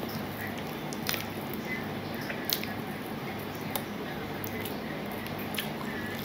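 Wet squishing of rice and curry being mixed and picked at by hand on a steel plate, with scattered sharp clicks, over a steady low hum.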